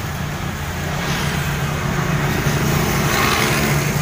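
A motor vehicle engine running steadily with a low, even hum, over street traffic noise.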